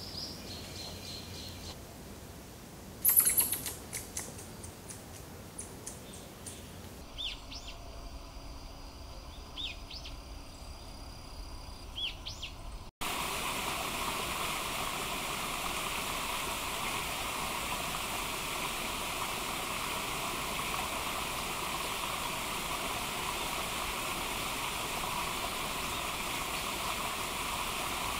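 Wild birds calling in woodland: high chirps, a loud sharp burst of calls about three seconds in, then short rising chirps. After an abrupt cut, a steady rushing noise like running water.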